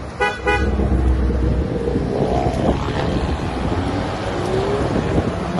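A convoy of cars driving past, with engine and tyre noise and wind on the microphone. Two quick toots of a car horn sound right at the start.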